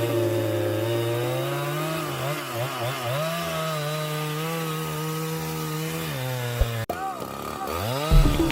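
Chainsaw engine running while cutting wood, its pitch repeatedly dipping and rising under changing load. There is a short break about seven seconds in.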